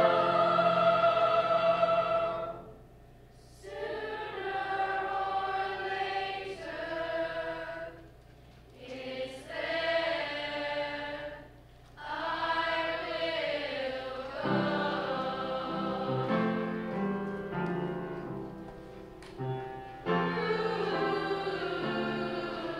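Mixed-voice choir of teenage singers singing held chords, breaking off briefly between phrases.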